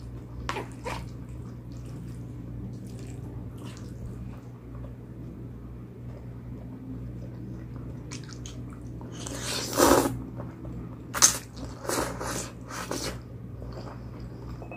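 A person eating palabok noodles and fried calamares close to the microphone: wet chewing and smacking with scattered small clicks, and louder bites about ten seconds in and again a second or three later, over a steady low hum.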